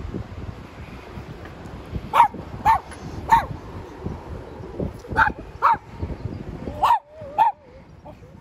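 A dog barking: about seven short barks in quick pairs, starting about two seconds in.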